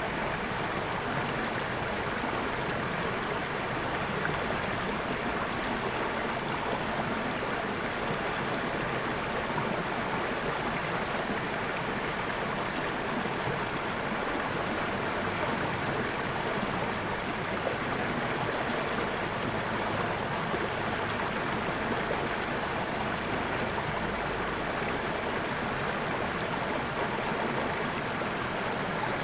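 Water flowing steadily in a natural stream, a continuous even rush with no breaks.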